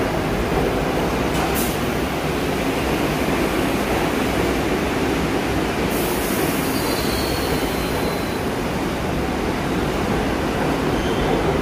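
R62A subway cars of a (1) train rolling along the platform, a steady rumble of wheels and motors. There is a brief high hiss about a second and a half in, and a faint high wheel squeal from about six seconds.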